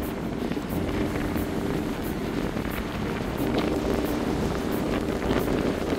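Wind buffeting the microphone with a steady low rumble, over the wash of surf breaking on the beach.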